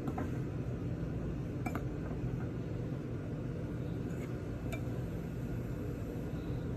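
A utensil stirring dry flour mix in a bowl, with a few light clinks against the bowl, over a steady low hum.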